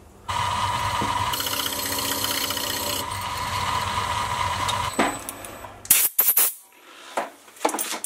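Mini-lathe running with a steady motor whine while a twist drill in the tailstock drill chuck bores out a spinning brass rod, the cutting grittiest in the first few seconds. About five seconds in the lathe stops, and a few sharp metallic clicks follow.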